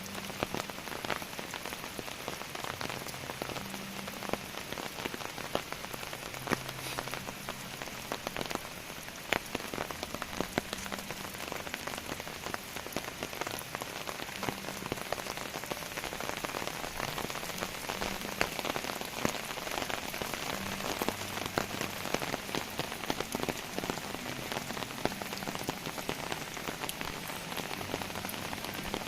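Heavy rain falling steadily, with many sharp drop impacts close by.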